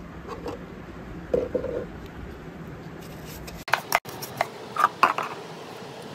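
Plastic hand brush sweeping dust off wooden shelves, with scattered clicks and knocks; a cluster of sharp taps comes about four to five seconds in.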